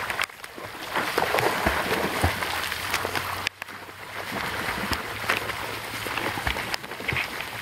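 Rain pattering steadily on the water's surface, mixed with the splashing of a swimmer's front-crawl strokes.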